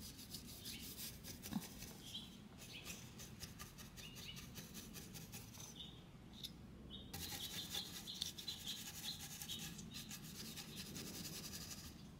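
A stiff-bristled chip brush, carrying almost no paint, is dragged lightly back and forth over a painted wooden cabinet door in dry brushing. It makes faint, repeated scratchy strokes, with a short pause a little past the middle.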